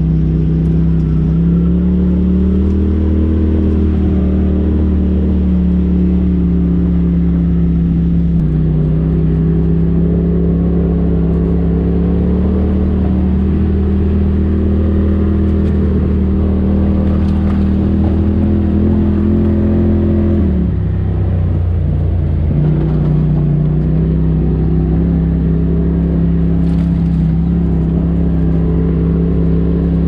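Polaris RZR side-by-side's engine running steadily under load at trail speed, heard from the cab. It eases off briefly about two-thirds of the way through, then picks back up.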